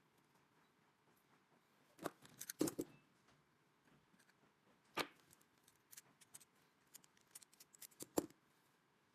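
Sharp clicks and light knocks of small hard parts being handled, with no machine running: a quick cluster about two seconds in, a single loud click about five seconds in, then scattered light ticks ending in a louder click near the end.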